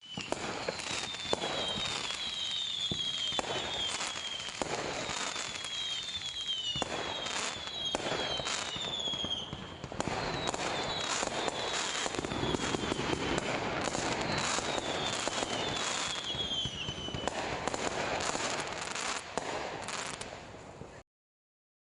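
Fireworks going off: a dense, continuous run of bangs and crackling pops, with repeated clusters of short high whistles that fall in pitch. It cuts off abruptly near the end.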